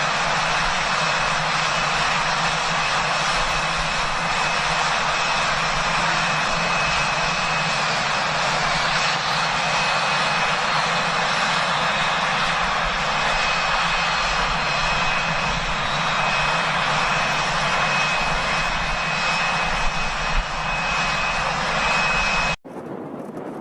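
Steady loud aircraft engine and airflow noise with a constant high whine running through it. It cuts off abruptly near the end to a much quieter hiss.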